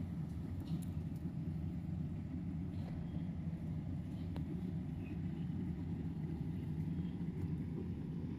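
A steady, even low hum from a motor or engine running, with a few faint ticks.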